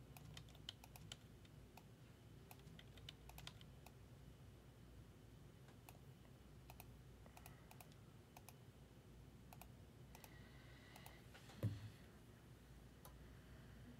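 Faint, scattered computer keyboard and mouse clicks from copying and pasting at a desk, with one brief low thump late on.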